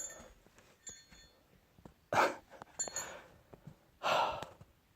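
Three short, heavy breaths close to the microphone, about two, three and four seconds in, with faint clicks and taps between them. A light metallic or glassy clink rings out and fades at the start.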